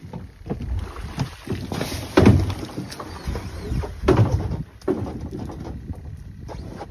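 Aluminium jon boat hull knocking and scraping as it is dragged over a beaver dam, with a few heavy thumps, the loudest about two seconds in and another about four seconds in.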